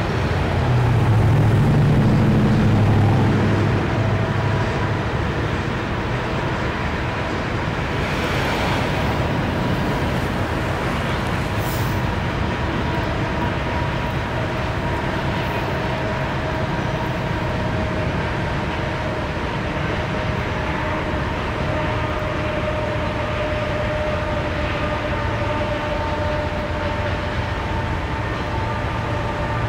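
Long freight train of open-top cars rolling past at a distance: a steady rumble of wheels on rail, louder and deeper for the first few seconds, with thin steady squealing tones coming in during the second half.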